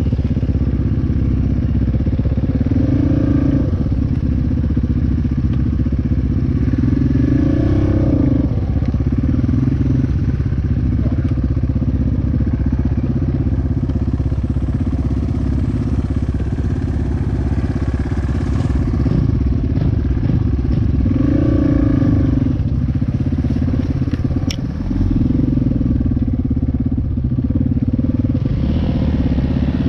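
Dirt bike engine running while riding, the revs climbing and dropping back several times as the throttle is worked.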